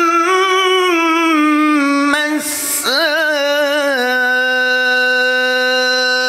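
A man reciting the Quran in melodic tajweed style, drawing out long held notes; he takes a quick breath about two and a half seconds in, then holds one long steady note from about four seconds on.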